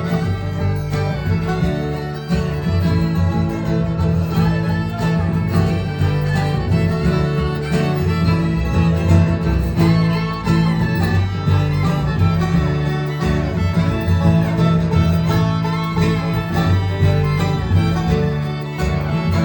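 Live bluegrass string band playing an instrumental break, with fiddle and guitar over a steady bass line.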